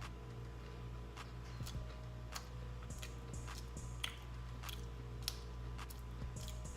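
A person chewing a mouthful of fried Oreo: irregular smacks and clicks of the mouth at a steady, unhurried pace.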